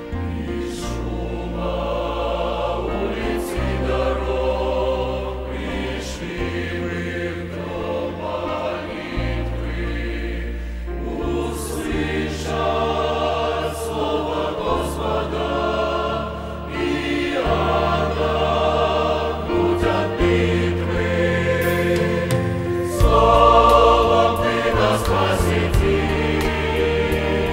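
Mixed church choir singing a Russian hymn over steady low bass notes that change every second or two; it swells louder about 23 seconds in.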